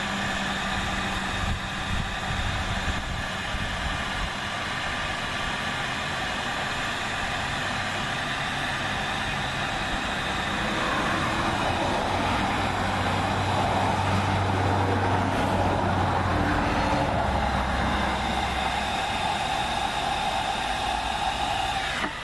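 Electric heat gun running steadily, its fan blowing with a motor whine as it shrinks heat-shrink tubing onto a crimped welding-cable connector. It gets louder about halfway through and drops off suddenly at the very end.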